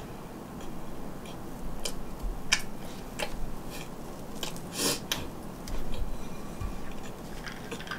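Chewing, and a hardened, stale red-bean glutinous rice donut being pulled apart by hand, giving a series of sharp clicks and crackles that are loudest about five seconds in.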